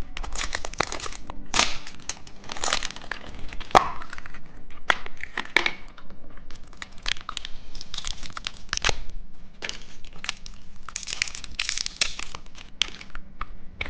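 Candy packaging being torn open and crinkled by hand, in many irregular sharp rustling bursts.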